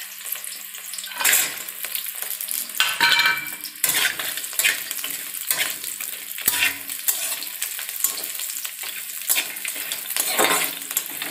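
Pork pieces, sliced onion and bay leaves sizzling in hot oil in an aluminium wok, with a metal spatula repeatedly scraping against the pan as the food is stirred.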